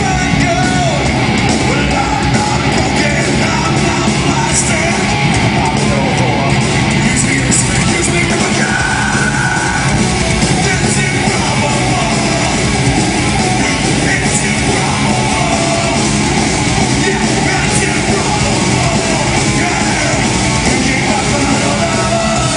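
Heavy rock band playing loud and without a break, with guitars and drums, the singer yelling the vocal line into the microphone.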